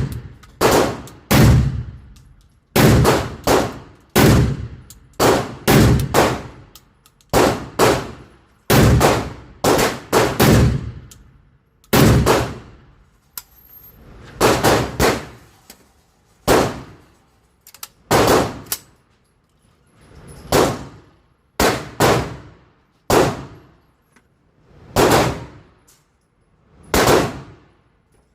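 12 gauge shotgun firing repeatedly, about two dozen loud shots at uneven spacing, often in quick pairs or triples, each blast fading briefly with a ringing tail.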